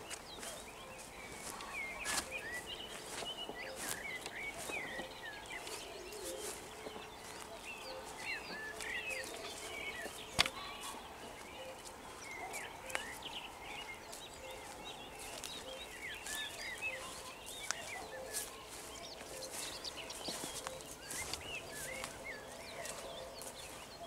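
Dawn chorus on open meadowland: many songbirds chirping and warbling together, with a soft low note repeating steadily underneath. A few sharp clicks cut through, the loudest about ten seconds in.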